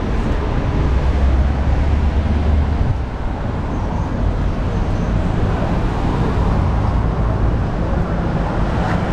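Steady road traffic noise with a low rumble, strongest in the first three seconds.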